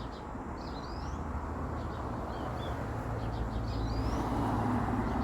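A small bird calling over and over, short high chirps each about a second apart, over a low rumble that grows louder toward the end.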